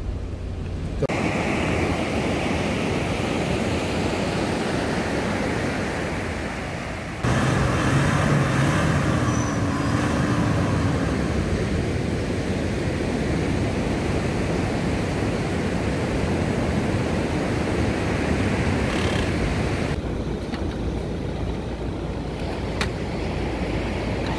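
Steady rush of ocean surf breaking on the shore, with wind rumble on the microphone. The sound shifts abruptly about a second in, about seven seconds in and about twenty seconds in.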